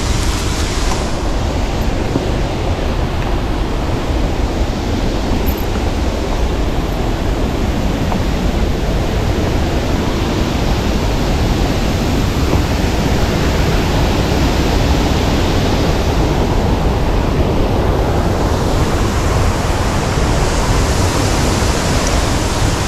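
Waterfall's falling water making a steady rushing noise.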